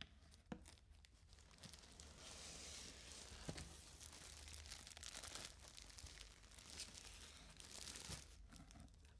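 Faint rustling and crinkling of a plastic mail-order bag and polythene packaging being handled and pulled open, with a few small clicks.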